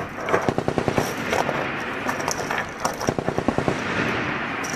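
Belt-fed machine guns firing on a range in rapid bursts of evenly spaced shots, about a dozen a second: one burst near the start and another about three seconds in, over the continuous rattle of fire.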